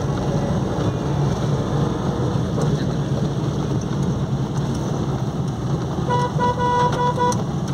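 Steady in-car noise of a car driving on a wet road, with a car horn tooting in a quick run of short beeps about six seconds in.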